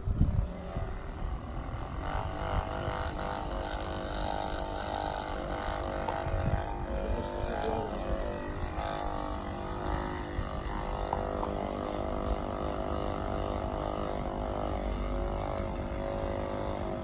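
Background music of sustained, held notes over a low rumble, coming in about two seconds in, after a short thump at the very start.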